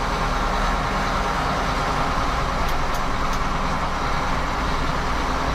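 Engine of a farm vehicle running steadily, an even drone with a low hum, and a few faint clicks about halfway through.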